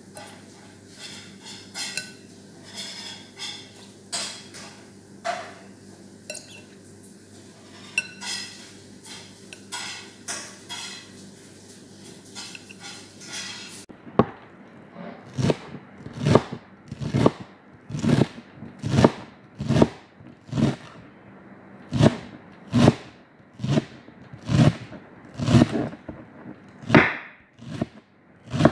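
Tabbouleh being tossed in a bowl with a utensil: irregular scraping and light clinks over a steady low hum. About halfway through this gives way to a large chef's knife chopping a bunch of parsley on a plastic cutting board, sharp chops about once a second.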